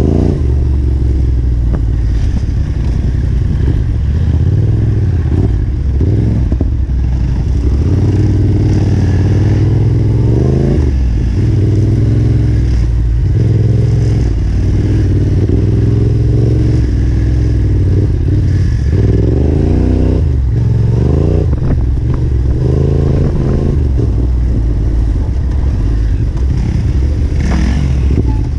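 Yamaha Ténéré 700's parallel-twin engine being ridden hard on a dirt trail. The revs rise and fall again and again as the rider works the throttle and gears.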